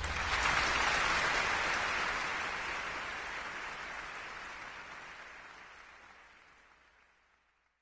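Audience applause: a dense clapping noise that starts suddenly and fades out steadily over about seven seconds.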